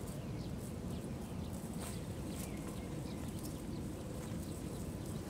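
A cast net being gathered and arranged by hand, its lead sinkers clicking lightly now and then, over a steady low rumble and faint high chirps.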